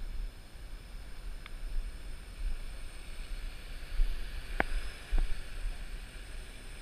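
Wind rumbling on the microphone, with a faint steady high whine from the Parrot AR.Drone 2.0 quadcopter's four electric motors that bends in pitch as the drone lifts off. Three sharp clicks, the loudest about four and a half seconds in.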